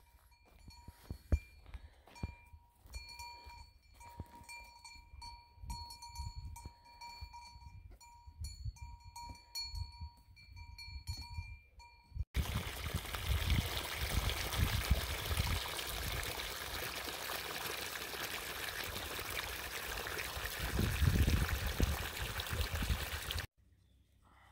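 Intermittent metallic ringing at one steady pitch, with small knocks between the rings. After a hard cut comes a steady rushing noise with a rumbling low end, lasting about eleven seconds before it cuts off abruptly.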